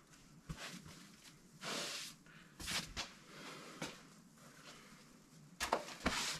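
Soft, scattered rustling and scuffing of a person moving about, with a louder brushing sound about two seconds in and a couple more near the end.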